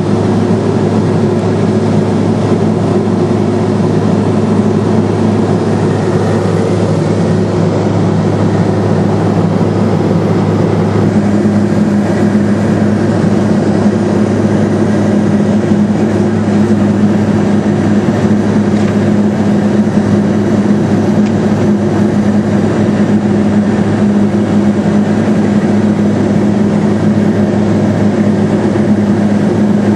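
Steady drone of a Cessna Silver Eagle's Rolls-Royce 250 turboprop engine heard inside the pressurized cabin: a loud, even hum with a low tone that grows a little stronger partway through.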